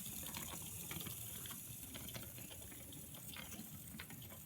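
Small geared motors of Maqueen robot cars running as the cars track a line, a faint steady whir with scattered small clicks.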